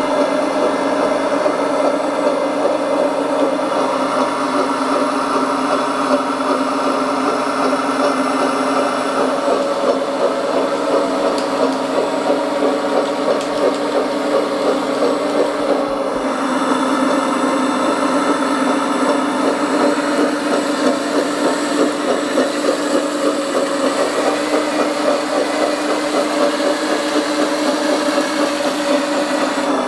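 Radio-controlled model bulldozer's motors running under load with a steady, fluttering whine, briefly easing off and picking up again about halfway through.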